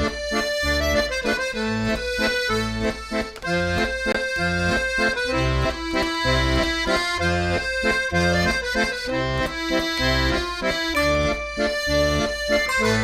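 Background music: an upbeat accordion-led tune over a steady beat.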